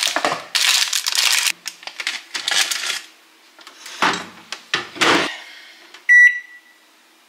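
Rustling and handling noises from a frozen meal's packaging and the microwave, in several bursts, then one short microwave beep about six seconds in.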